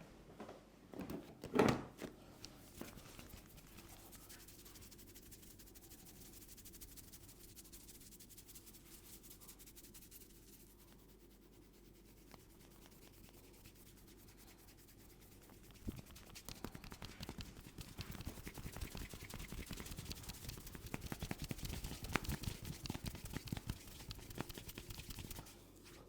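Hands massaging a head close to the microphone, with fingers rubbing and scratching through the hair. The rubbing is soft at first, then from about two-thirds of the way in it turns into a dense, louder scratchy scrubbing that stops shortly before the end. One short, louder knock or thump comes about two seconds in.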